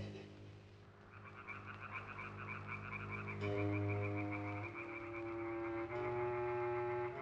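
A chorus of frogs croaking in rapid trills, starting about a second in, over sustained low music chords whose notes shift a few times.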